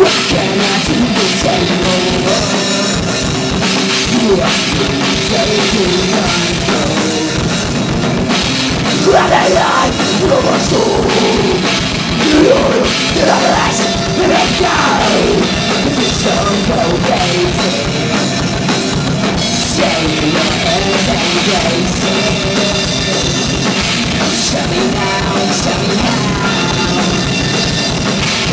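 Live rock band playing at full volume: drum kit, electric guitars and bass, with a singer's voice coming in through the middle stretch.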